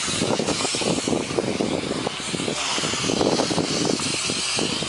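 An engine running steadily, with a constant airy hiss over it and a rough, crackling low rumble beneath.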